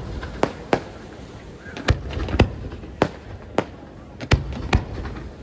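Aerial firework shells bursting: about eight sharp bangs at uneven intervals, some close together in pairs.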